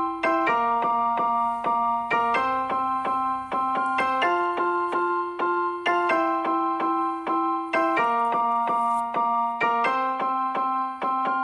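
Background music: a keyboard plays a steady run of notes, about four a second, over held low notes that change every two seconds or so.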